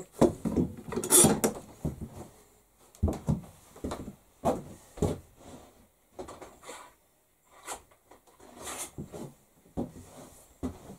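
Irregular knocks, clatter and short scrapes of tools and objects being handled and set down on a wooden workbench.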